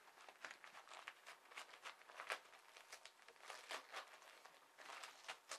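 Wrapping paper crinkling and tearing in quick, irregular rustles as a Jack Russell terrier rips open a wrapped present.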